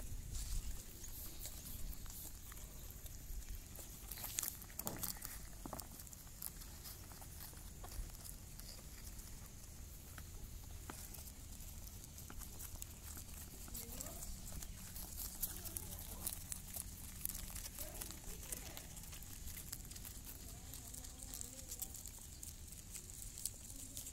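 Doe rabbit chewing fresh green leaves close to the microphone: a run of small crisp clicks and soft rustles. Faint voices are heard in the background in the second half.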